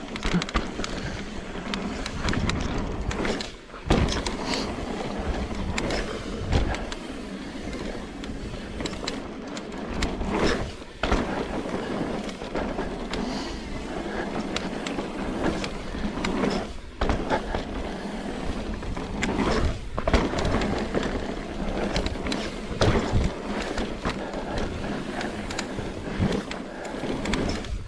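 Mountain bike rolling over sandstone slickrock: a continuous rolling and rushing noise, broken again and again by short knocks and rattles as the wheels hit bumps and ledges.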